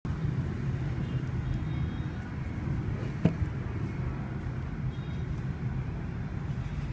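Steady low background rumble, like distant traffic, with a single sharp knock about three seconds in.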